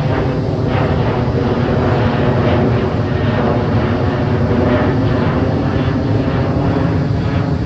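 Jet engines of a Boeing 737 climbing out overhead after takeoff: a loud, steady rumble with a crackling edge.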